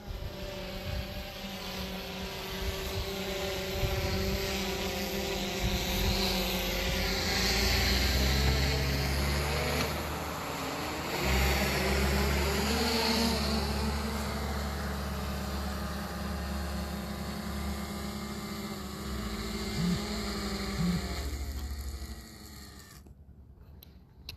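Small quadcopter drone's propellers humming in several steady tones, their pitch shifting up and down as it manoeuvres, then dying away about 22 seconds in.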